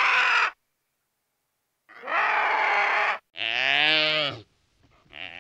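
Two harsh, rasping vulture calls, then a drawn-out moaning call from an oryx whose pitch rises and falls, with fainter short calls near the end.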